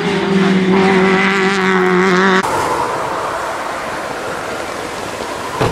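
Hillclimb race car engine running hard at high, steady revs as it goes up the course; the sound cuts off abruptly about two and a half seconds in. A rougher, noisier engine sound follows, and a single thump comes near the end.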